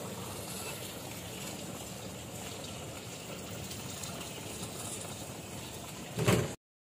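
Rumble and rattle of a slow-moving open vehicle ride, with a louder knock near the end before the sound cuts off suddenly.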